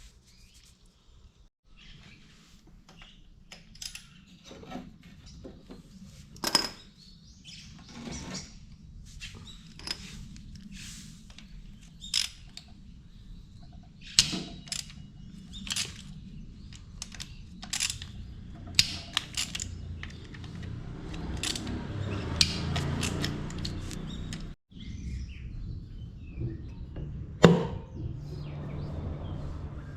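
Metal clinks and knocks of hand tools and engine parts as a Honda N360 racing engine's bottom end is taken apart. The sharp taps come every second or two. A longer stretch of rubbing noise comes about two-thirds of the way through, and a loud knock comes near the end.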